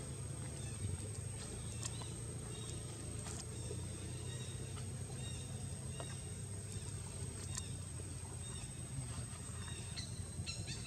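Outdoor ambience: a steady low hum with faint, scattered short chirps and ticks over it.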